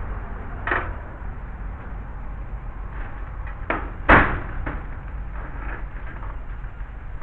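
A few short knocks, the loudest a sharp bang just after four seconds in, over a steady low rumble.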